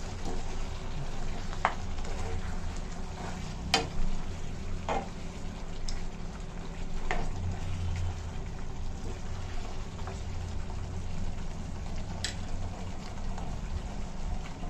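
Chicken with red masala sizzling in a frying pan as it is stirred with a spoon, with a handful of sharp knocks of the spoon against the pan.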